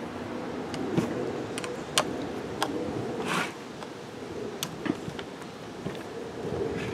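Scattered sharp clicks and taps of a screwdriver and the plastic choke linkage as a new carburetor is fitted to a chainsaw, with a short scraping swish a little past the middle, over a steady faint hum.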